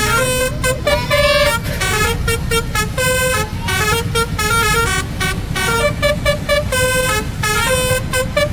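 Basuri (telolet) multi-tone bus horn playing a quick tune of short, changing notes, over the low rumble of the bus's engine.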